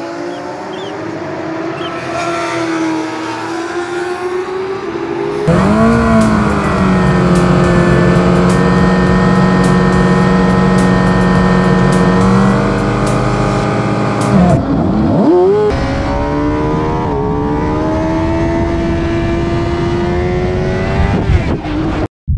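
Sport motorcycle engine running, rising gently in pitch at first. About five seconds in, the engine becomes much louder and is held at steady high revs for several seconds; this fits the Suzuki GSX-R600's inline-four engine holding revs on the start grid. Near the middle the revs dip sharply and climb again, then rise steadily until the sound cuts off suddenly near the end.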